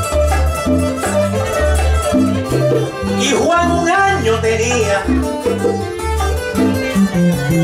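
Latin string-band music: plucked strings over a bass line moving in short rhythmic notes.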